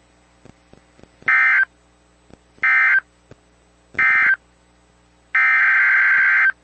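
NOAA Weather Radio SAME digital data tones: three short screeching bursts about a second apart, the end-of-message code closing a tornado warning, then near the end a longer burst, the header of the next warning starting.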